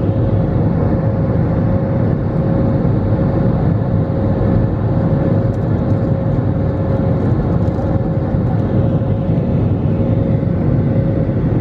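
Airbus A320 cabin noise in the climb after takeoff: the steady low rumble of the jet engines and rushing air, with a steady mid-pitched hum running through it.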